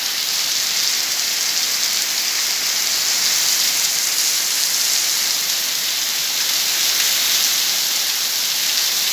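Heavy rain pouring down on paving and tiles, a steady dense hiss with no let-up.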